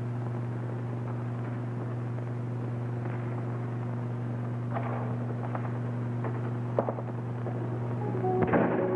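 A steady low hum, with a few faint knocks about five and seven seconds in.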